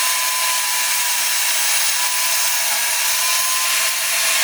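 An electric power tool's motor running steadily: an even rushing noise with a faint, constant whine.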